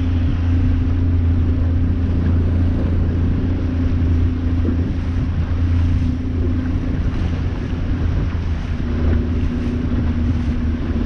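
A boat's engine running at a steady speed, giving a constant low drone.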